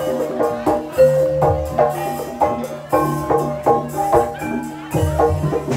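Live gamelan-style accompaniment for an ebeg dance: a quick run of mallet-struck tuned percussion notes that ring briefly, over low recurring gong-like tones and drum hits.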